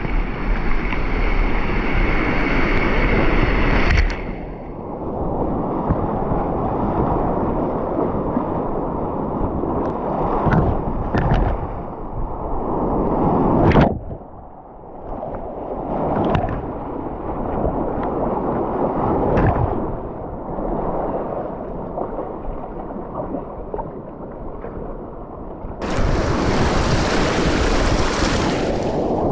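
Whitewater rapids rushing and waves breaking over the bow of a sea kayak, with water sloshing against the hull. About halfway through, a wave splashes over the camera and the sound drops for a moment. It turns brighter and hissier near the end.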